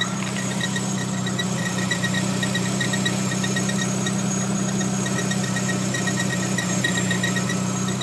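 Renault Clio II RS 182's 2.0-litre four-cylinder engine idling, with a rapid, uneven high-pitched chirping squeak repeating several times a second over the steady engine note. This is the suspect squeal the owner is documenting; its cause is not identified.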